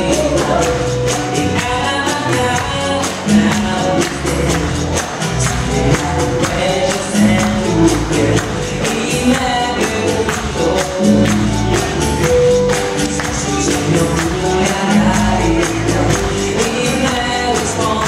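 Cha-cha-cha dance music with a steady percussion beat and a singing voice.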